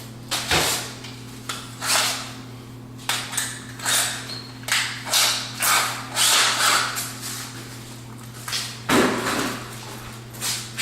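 Handling noises from work on a wooden bathroom vanity cabinet: about a dozen short scrapes and knocks, with a steady low hum underneath.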